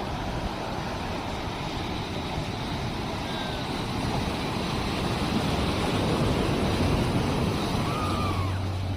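Sea waves washing on the shore, a steady rushing surf that swells louder about five seconds in and eases off near the end, with a low rumble.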